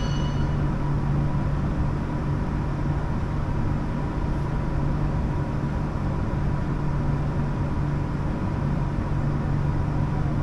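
CRH6F electric multiple unit running at speed, heard from inside the carriage: a steady rumble with a constant low hum. A high whine dies away within the first half-second.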